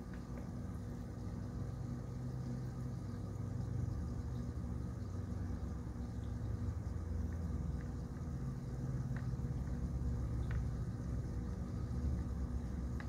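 Steady low rumble and hum of room background noise, with a few faint ticks in the second half.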